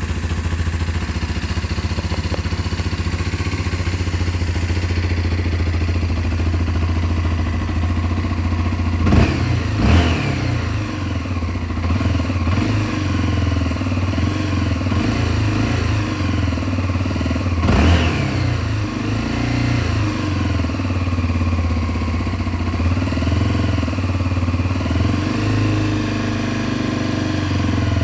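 Honda CB 300R's single-cylinder engine idling steadily, with quick throttle blips about a third of the way in and again past the middle. Each time the revs fall back to idle, and there are smaller rev rises later on.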